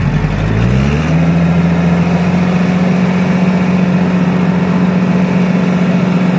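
Tractor engine revving up over about the first second, then running steadily at the higher engine speed.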